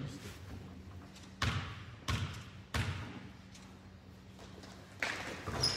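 Basketball bounced three times on a gym floor, evenly spaced about two-thirds of a second apart, as a player dribbles at the free-throw line. A louder knock follows about five seconds in, with a few short sneaker squeaks near the end.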